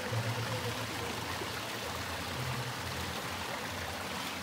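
Steady rush of water pouring and flowing into a bathing pool.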